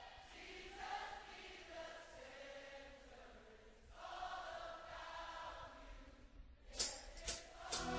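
Soft passage of a worship-song karaoke backing track: sustained choir-like pad chords that shift slowly, then three sharp percussive hits near the end as the full band comes back in.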